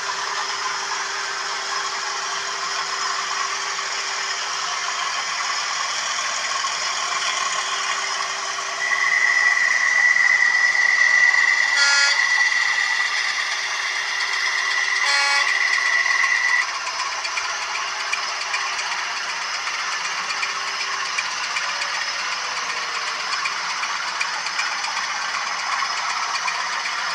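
OO gauge model trains running on the layout: a steady rattle of wheels and motors over the track. A high steady tone sounds for about eight seconds in the middle, with two brief clicks during it.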